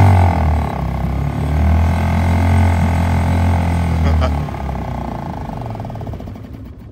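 Small Suzuki outboard motor running just after a hard start, warming up with a steady low drone; the drone fades about four and a half seconds in as the engine slows.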